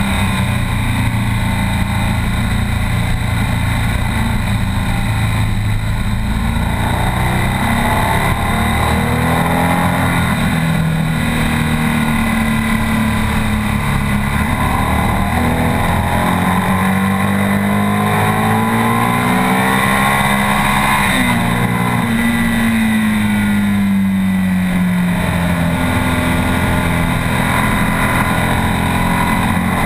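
BMW R 1200 S's air/oil-cooled boxer twin running hard on a race track, its pitch climbing, stepping and falling with throttle and gear changes, over a steady rush of wind.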